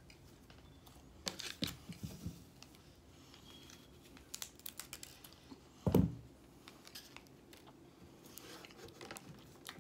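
Scissors snipping open a plastic drink-mix stick packet, with sharp clicks and crinkling of the wrapper. About six seconds in comes one dull thud, the loudest sound, followed by small light clicks.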